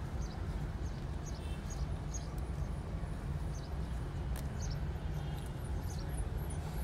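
Steady low rumble of street traffic ambience, with faint high chirps here and there.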